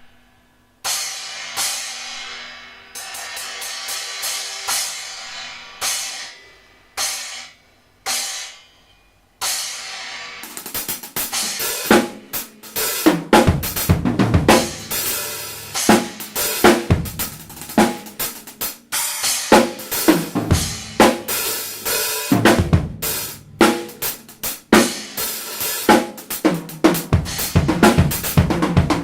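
Arborea Ghost 10-inch stacker cymbal struck on its own about half a dozen times, each hit ringing out and fading. From about ten seconds in, a full drum-kit groove with kick and snare plays along with it.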